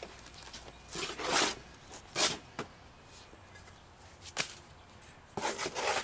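Steel trowel scraping and slapping wet mortar onto a stone step: a few separate scrapes and clicks, with longer scrapes about a second in and near the end.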